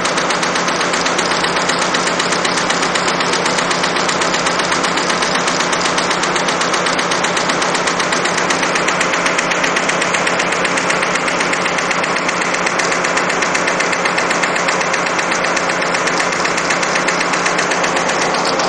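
Industrial multi-needle embroidery machine stitching at speed, a rapid, steady, even clatter of needle strokes as it sews sequins and rattail cord onto fabric.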